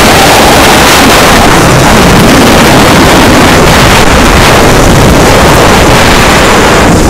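Loud, steady wind rushing over the microphone of a camera moving fast down a zipline.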